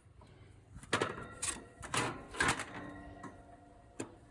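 Sheet-metal panel of an air-conditioner outdoor unit clanking as it is seated and locked into place: a quick run of metallic knocks that ring briefly, then one more click near the end.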